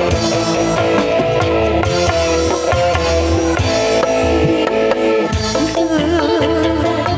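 Live dangdut band music played loudly through a PA: a keyboard melody over a hand-drum (gendang) rhythm and bass, with no singing in the foreground.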